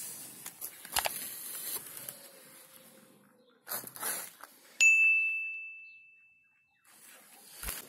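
A single bell ding about five seconds in, ringing on and fading away over about two seconds, the notification-bell sound effect of a subscribe prompt. A short rush of noise comes just before it, and light clicks and rustling fill the first few seconds.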